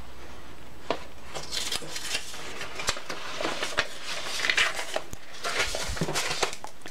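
Paperback colouring book being handled: pages rustling as it is closed and turned over, with a few light knocks against the desk.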